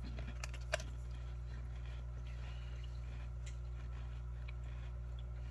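Steady low hum of room tone, with two or three faint small clicks in the first second.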